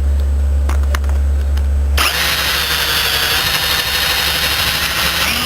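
Power drill turning a homemade bit, made of twisted steel rod, through hardwood. A steady low drone about two seconds in gives way suddenly to a loud rasping cutting noise as the bit bites into the wood.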